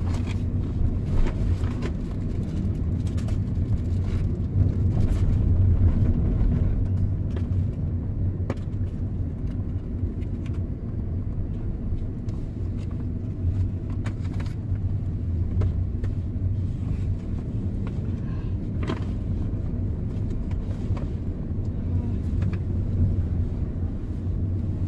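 A car driving slowly along a town street: a steady low engine hum and road rumble, with scattered light clicks and knocks.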